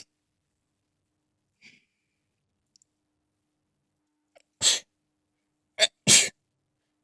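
A person sneezing twice in quick succession, about a second and a half apart, in the second half, as part of a sneezing fit; the second sneeze is a two-part "ah-choo".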